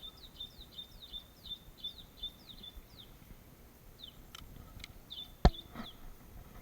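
A bird calling a rapid series of short, high, falling chirps, about three a second, which stops for about a second and then resumes. About five and a half seconds in there is one sharp, loud click.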